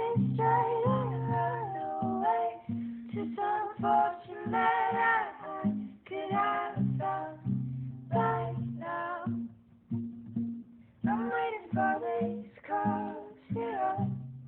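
Young female voices singing a song over an acoustic guitar, the guitar's low notes keeping a steady rhythm under the melody.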